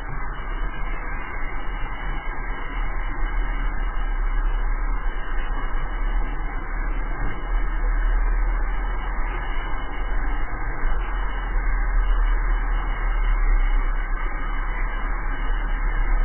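Steady rush of wind and rolling-wheel noise from a drift trike coasting down an asphalt road, with heavy low wind buffeting on the camera's microphone.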